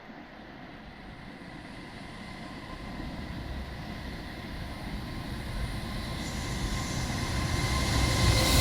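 A train approaching, its rumble and rail noise growing steadily louder, with a steady high tone running through it.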